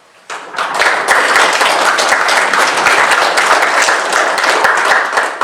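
Audience applauding, many hands clapping at once. It starts a moment in and holds steady, then begins to die away at the very end.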